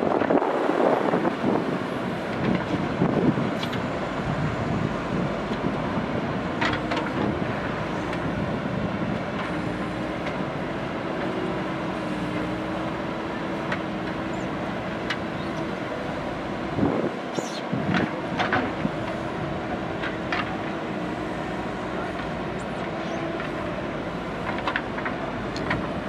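JCB 3DX backhoe loader's diesel engine running under load as the backhoe digs soil, with a steady hum held through the middle and a few sharp clanks of the bucket and arm.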